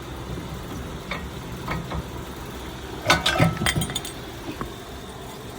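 Metal brake parts clinking and knocking as a rear brake pad assembly is pulled out of the caliper: a few light clicks, then a quick cluster of sharper clinks about three seconds in, over a steady low hum.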